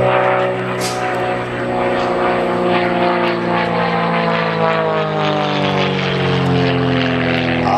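Aerobatic biplane flying overhead, its single piston engine and propeller giving a steady drone whose pitch falls slowly.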